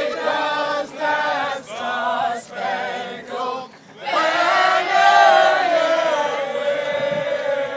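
Several male voices chanting in short repeated phrases, then holding one long sung note.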